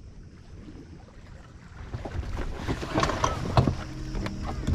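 Gear being handled aboard an inflatable dinghy: a low wind rumble, then from about two seconds in a run of knocks and rattles that grows louder.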